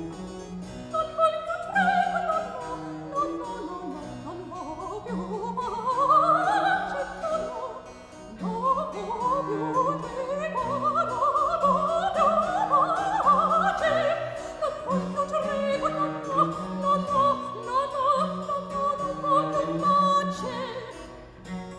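Soprano singing long, rapid runs that rise and fall, over harpsichord and cello continuo in an early-Baroque aria.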